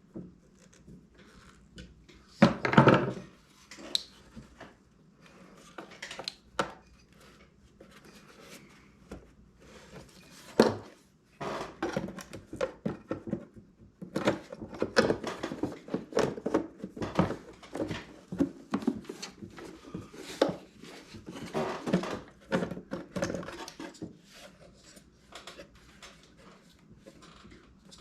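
Knocks, clicks and clatter of metal parts and hand tools being handled while a diesel heater is put back together. There is a loud knock about 2.5 s in and another about 10.5 s in, then busy clattering until about two-thirds of the way through.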